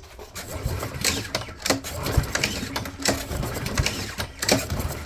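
Honda GCV160 single-cylinder lawnmower engine running unevenly with a clattering rumble, its speed fluttering up and down instead of holding steady. This is the surging RPM fault the owner cannot explain.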